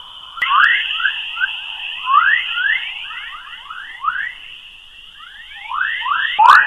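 Earth's 'chorus': electromagnetic plasma waves in the magnetosphere, converted to audio, heard as a quick string of rising chirps over a steady high whine. There are a couple of sharp clicks near the end.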